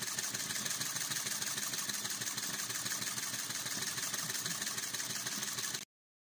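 Chinese V2 flame-licker (vacuum) engine running with both cylinders firing, a rapid, even popping rhythm, freshly tuned by a cam adjustment. It cuts off suddenly near the end.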